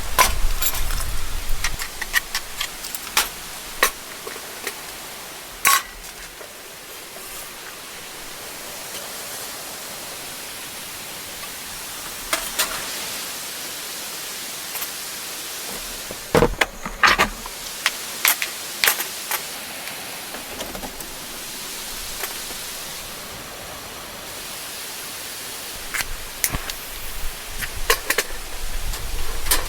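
Steady hiss of heavy rain, with scattered sharp clicks and knocks, a cluster of them about halfway through and more near the end.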